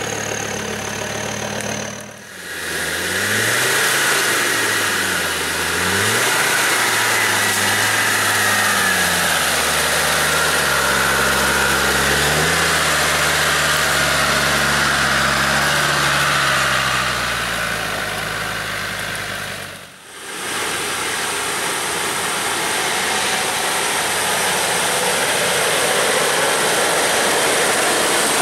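Land Rover Defender diesel engines pulling slowly up a rough track close by, one vehicle after another. The engine pitch rises and falls with the throttle over a loud steady hiss. The sound breaks off sharply twice, about two seconds in and about twenty seconds in, where one vehicle's pass gives way to the next.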